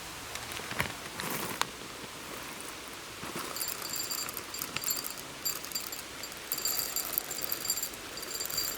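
Outdoor forest ambience over a steady hiss: a few short rustles and knocks in the first couple of seconds, then high-pitched chirping in repeated bursts from a few seconds in.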